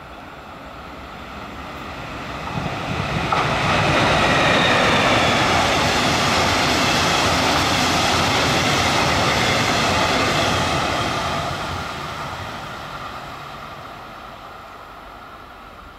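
A locomotive-hauled double-deck passenger train passing at speed. The rolling noise of wheels on rails swells over the first few seconds, stays loud for about seven seconds as the coaches go by, and then fades away, with a faint high whine running through it at its loudest.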